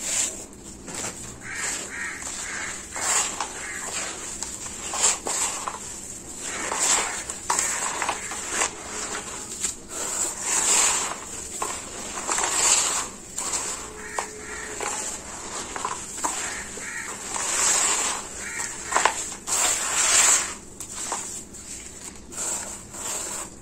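Water poured onto a dry sand-and-cement mix in a plastic tub, then gloved hands mixing and crumbling the damp, gritty mix, with irregular crunching and scraping as handfuls are worked and pressed.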